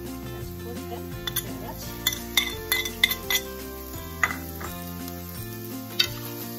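Metal spoon clinking and scraping against dishes and a frying pan as shredded carrots are tipped into the pan: a cluster of sharp clinks from about one to three and a half seconds in, another a little after four seconds and one near six, over background music.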